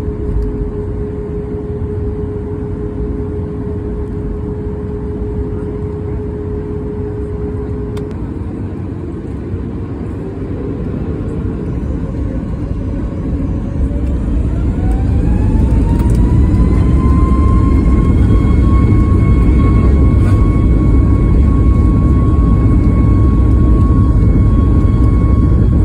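Boeing 737 MAX 8's CFM LEAP-1B turbofan engines heard from inside the cabin: a steady whine at first, then spooling up to takeoff thrust from about ten seconds in, the whine rising in pitch and the engine noise growing louder until it levels off at full power for the takeoff roll.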